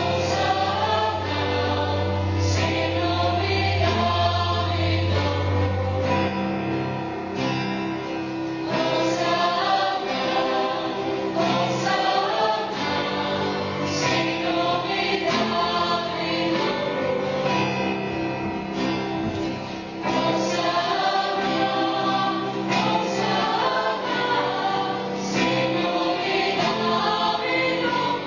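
A choir singing a Christian song, with a low note held under the voices for the first six seconds or so.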